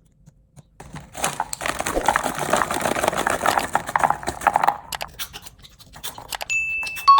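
Crackly crinkling and crunching of a corn snack and its packaging, dense for about three and a half seconds, then a few light clicks. A short high beep comes near the end, and a two-note chime starts just as it ends.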